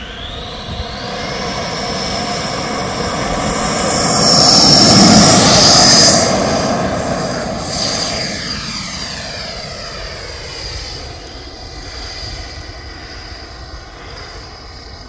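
Twin Schübeler DS-82 electric ducted fans of a large RC F-4 Phantom model jet at high power on its takeoff run and climb-out: a high whine that swells to its loudest as the jet passes about five seconds in, then drops in pitch and fades as it flies away.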